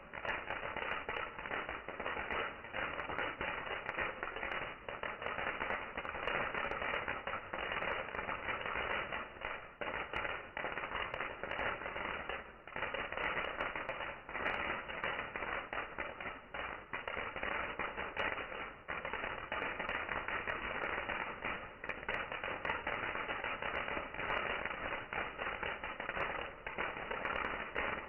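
Bonfire burning with dense, continuous crackling: a steady stream of small snaps and pops and no single large bang.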